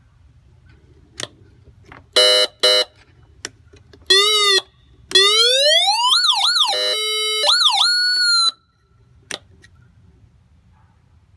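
Siren tones from the Carson SA-430 controller of an OCEANEARS Patriot acoustic diver recall system, the emergency recall signal for divers. There are two short buzzing horn blasts, then a quick rise-and-fall sweep. A long rising wail follows, breaks into two fast up-and-down yelps, gives another horn blast, and holds a steady tone with one dip before it cuts off suddenly. A few sharp clicks come before and after.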